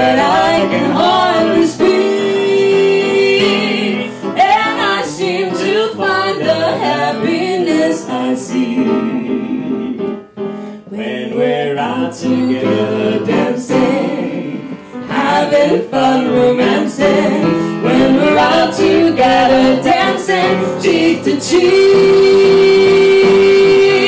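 A woman and a man singing a duet into microphones, accompanied by piano. A long note is held near the end.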